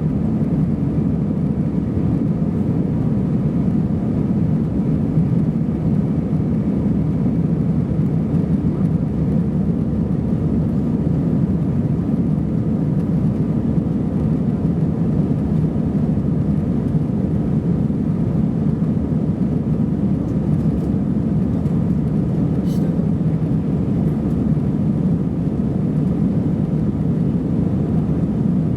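Steady cabin noise inside an Airbus A320-214 airliner: an even, low rumble of the jet engines and airflow heard from a rear seat. There is a faint brief click about two-thirds of the way through.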